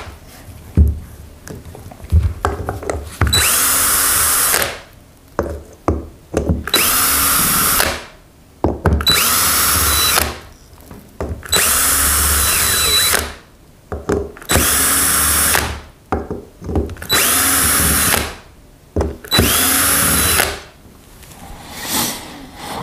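Cordless drill-driver running in about seven short bursts, each spinning up quickly, with one brief blip near the end and small handling clicks between. It is undoing the fasteners while the car's LPG gas reducer is taken apart.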